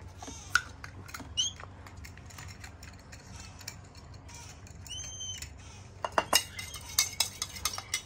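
A Triton sulphur-crested cockatoo chick gives a few short, high squeaks. From about six seconds in, a quick run of sharp metallic clinks comes from a spatula knocking against a stainless steel jug of hand-feeding formula.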